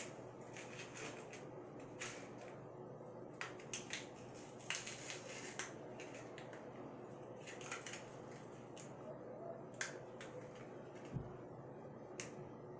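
Faint, irregular crinkles and clicks of a small candy wrapper being handled and picked open by fingers.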